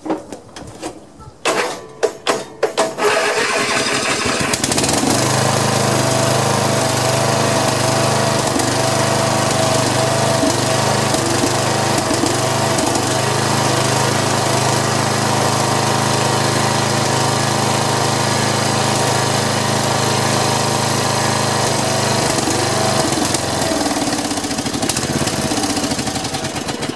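Snapper SR1230 rear-engine rider's Briggs & Stratton engine being started. It turns over in a few sharp strokes, catches and runs steadily, then winds down near the end as it is switched off. This is a repeated start-and-stop test to see whether the flywheel key shears again.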